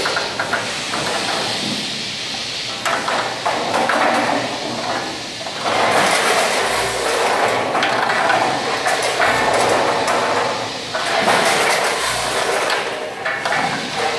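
A 10-head multihead weigher running: food pieces clattering down its feed cone and vibrating pans into the metal weigh hoppers, amid steady machine noise. The clatter swells and eases in a rough cycle of about every three seconds.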